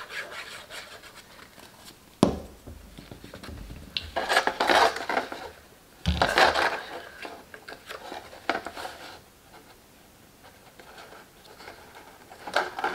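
Stiff cardstock rustling and scraping as paper panels are handled and pressed into place, with two sharp knocks about two and six seconds in.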